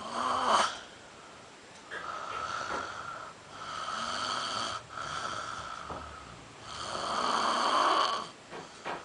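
A drunk man snoring heavily in his sleep: a short loud snore at the start, then a series of long, high whistling snores, the loudest near the end.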